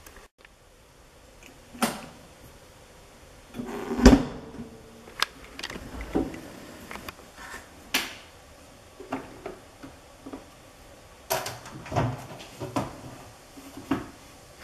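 Philips SlimStar HN3156 top-loading washing machine's lid being opened and handled: a run of separate clicks and knocks, the loudest a thump about four seconds in.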